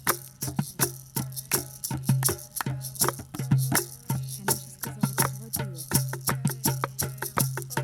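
Music with a steady beat: shaker-like percussion ticking over a pulsing bass line and sustained pitched notes.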